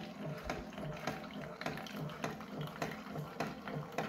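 Keurig single-serve coffee maker brewing: a thin stream of coffee pours and spatters into a paper cup over a low, pulsing hum from the machine.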